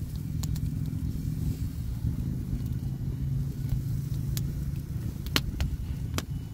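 Wood fire in an open fire pit crackling, with about five sharp pops scattered through, the strongest about five seconds in, over a steady low rumble.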